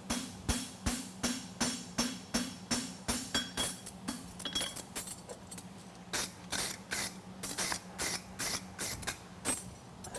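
Farrier's hammer striking a steel concave horseshoe on an anvil, about three ringing blows a second. The blows pause for a couple of seconds in the middle, then start again, over a steady low hum.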